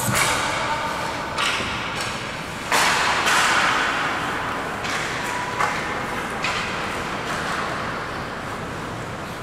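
Ice hockey play in a reverberant rink: skate blades scraping and carving the ice and sticks striking the puck, with several sharp hissing scrapes at irregular moments, the strongest about a third of the way in.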